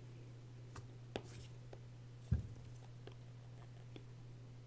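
Faint taps and clicks of a stylus on a tablet screen as points are marked on a graph, with one low thud a little past two seconds in, over a steady low hum.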